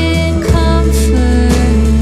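Background music with a steady bass, a melody and drum strokes.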